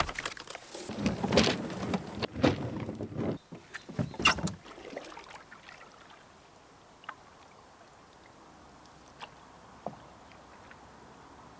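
A canoe on the water: paddle splashes and knocks against the hull, several strong ones in the first few seconds, then quieter with a few light single knocks.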